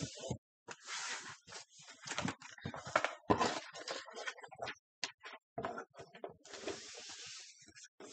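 Cardboard and paper rustling, scraping and crinkling as a cardboard insert and papers are handled and pulled out of a shipping box, in irregular short bursts with a few sharp knocks and a longer paper swish about six and a half seconds in.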